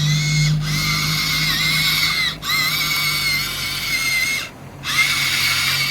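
Electric motors of a HUINA 1593 1/14-scale RC excavator whining as its functions are worked. The high whine stops and starts again three times as the controls are released and pressed, over a steady low hum.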